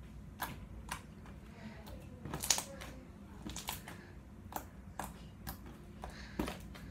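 Homemade glue-and-borax slime being poked and squished by hand, giving off a string of irregular small clicks and pops, the loudest cluster about two and a half seconds in.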